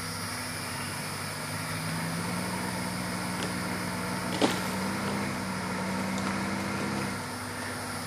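An engine running steadily. It picks up speed about two seconds in and drops back near the end, with one sharp click about four and a half seconds in.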